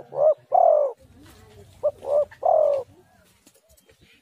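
Spotted dove (tekukur) cooing: a three-note phrase, two short notes and a longer falling note, given twice about two seconds apart.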